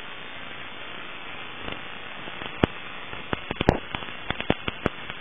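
Steady static hiss on the FPV downlink audio, joined about a second and a half in by sharp crackling clicks that come more and more often.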